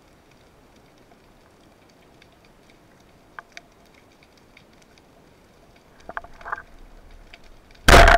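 Faint, scattered clicks heard underwater, then a few knocks about six seconds in and, near the end, a loud sudden burst as the speargun fires with a jolt.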